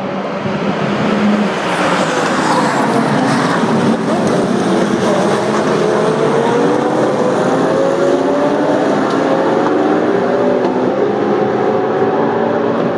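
A pack of GT3 race cars accelerating hard from a rolling start, many engines running at high revs at once. The sound is loud throughout, their pitch climbing steadily from about five seconds in.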